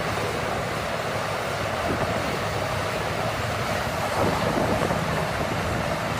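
A steady rushing noise with no clear pitch or rhythm.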